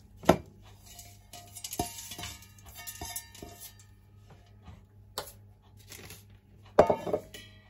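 Stainless steel bowl and spoon clinking against a steel pot: a sharp clink just after the start, a few lighter knocks, and a louder clank near the end. In between, liquid is poured from the bowl into the pot.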